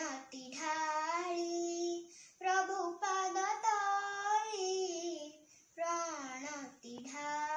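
A young girl singing solo without accompaniment, holding and bending long notes in three phrases with short breaks between them.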